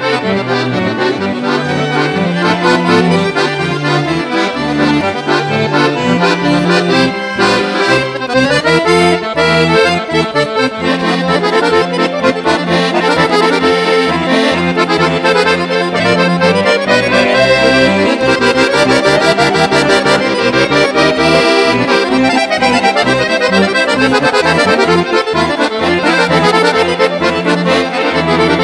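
Two chromatic button accordions playing a traditional-style tune together, with repeated rising and falling runs of notes through the middle of the passage.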